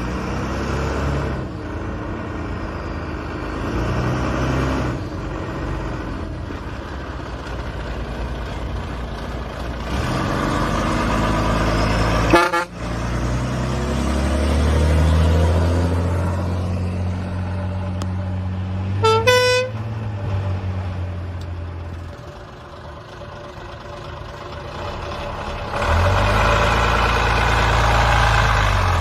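Emergency vehicles' engines rumbling as they drive past, swelling and fading as each passes. About two-thirds of the way through, one vehicle gives a short horn blast lasting under a second.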